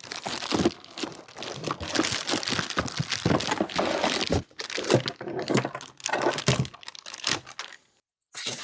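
Plastic wrapping crinkling and cardboard packaging rustling, with many small knocks and scrapes, as a wrapped unit is lifted out of its box and the cardboard inserts are handled. The noise stops about eight seconds in.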